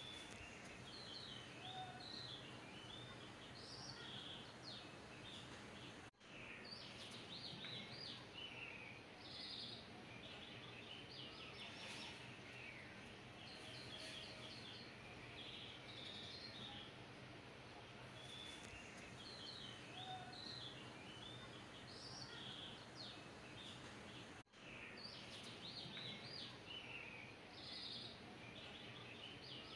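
Faint birdsong: small birds chirping and twittering in quick bursts over a steady low hiss. The sound drops out briefly twice, about six seconds in and near the end.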